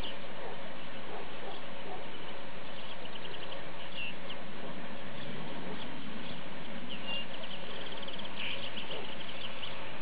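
Meadow ambience: a steady hiss with faint, short runs of rapid high chirping every few seconds, from insects or birds in the grass.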